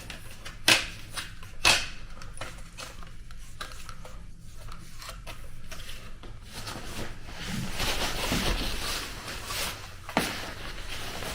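Handling noises from measuring equipment: a few sharp clicks and knocks, with a stretch of rustling in the second half.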